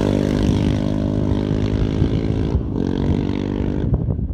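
Yamaha Raptor 660R quad's single-cylinder four-stroke engine running hard through an HMF Performance Series full exhaust as it pulls away on dirt, slowly getting quieter as it moves off.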